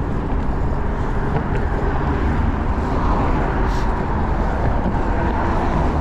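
Steady wind and road noise of a bicycle ride, with a continuous low rumble.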